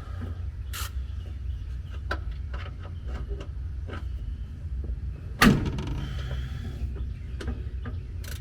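Metal tool clicks and knocks while an oil drain plug is worked loose from underneath a truck, over a low steady rumble. One loud metallic clank comes about two-thirds of the way in.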